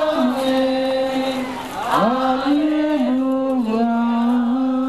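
Slow religious chant sung in long held notes, with a rising slide into a new phrase about two seconds in.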